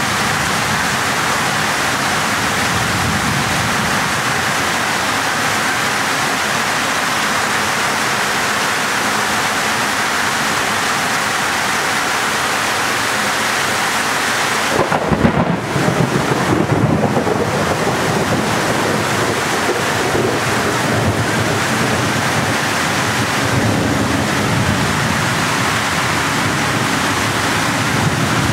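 Heavy rain pouring down and floodwater rushing past, a loud, steady hiss. About halfway through, a louder, rougher rumble swells for a couple of seconds and then settles back.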